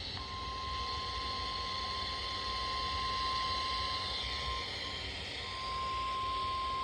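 NOAA Weather Radio warning alarm tone: a single steady tone of about 1050 Hz that begins just after the start and holds, over radio static and a low hum. It is the alert signal that precedes a broadcast warning, here a severe thunderstorm warning.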